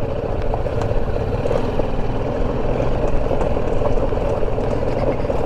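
BMW G 310 GS motorcycle's single-cylinder engine running steadily as the bike rides over a rough gravel track, with scattered light clicks.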